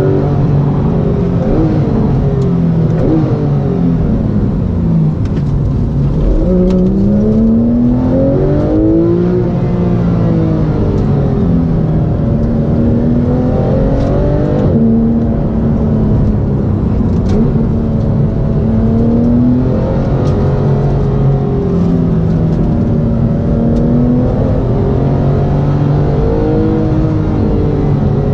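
Porsche 911 GT3's naturally aspirated flat-six engine heard from inside the cabin while driving. The engine pitch climbs and falls several times as the car accelerates and shifts through the gears.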